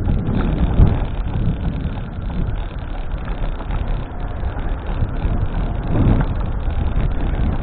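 Steady low rumbling noise of wind on the microphone and passing vehicles, with one sharp click about a second in.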